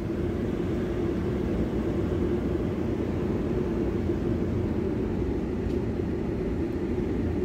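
Steady low rumble of a vehicle's engine and road noise, heard from inside the cab.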